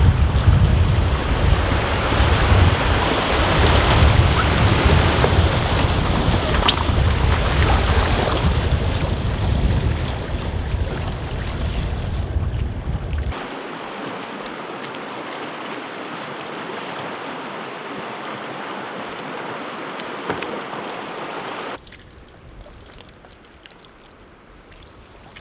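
Rushing river water with wind buffeting the microphone. The rumble cuts off abruptly about 13 seconds in, leaving a steady water rush, which drops suddenly to a quieter hiss near the end.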